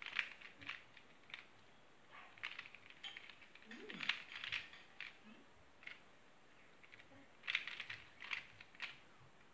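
Square-1 puzzle being turned and sliced by hand during a speedsolve: quick runs of sharp plastic clicks and clacks in several bursts, with short pauses between them.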